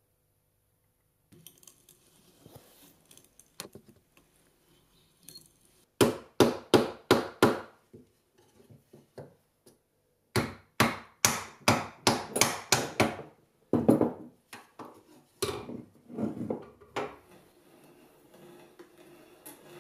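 Sharp knocks of wood struck against wood as the spindles and curved back rail of a greenwood chair are tapped together. They come in two quick runs of several knocks each, about three a second, with a few scattered knocks after.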